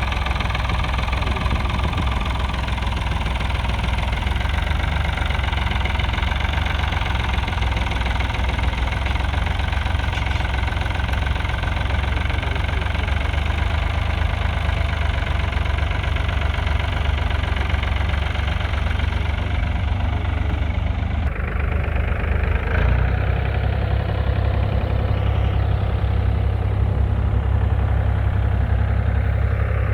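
1968 Ford 4000's 3.3-litre three-cylinder diesel engine running steadily. Its sound shifts about two-thirds of the way through, the higher part falling away while the low rumble grows.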